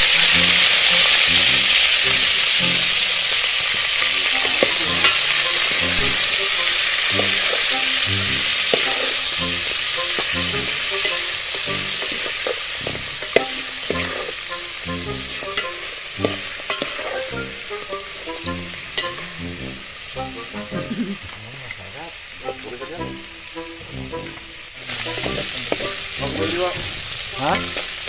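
Field frog meat sizzling as it fries in a metal pot over a wood fire, stirred with a spoon that scrapes and knocks against the pot. The sizzling is loudest at first, dies down gradually, and picks up again near the end.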